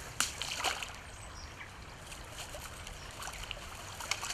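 River water trickling, with a couple of small splashes in the first second as a big rainbow trout is let go back into the water.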